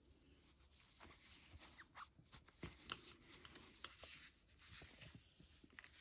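Faint squeaking and rubbing of cotton yarn drawn over a crochet hook as double crochet stitches are worked, with two sharper ticks about a second apart near the middle.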